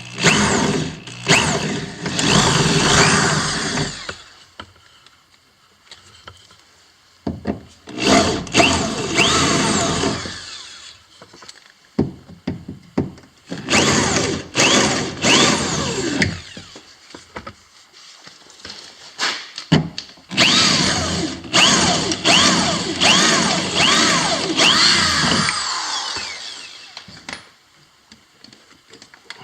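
Power drill drilling out the rivets that hold a factory car-door speaker in place, worked with light pressure. It runs in four bursts of a few seconds each with short pauses between, the pitch rising within the bursts.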